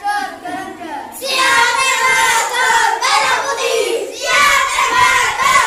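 A group of children's voices chanting loudly in long held phrases, with short breaks about one and four seconds in.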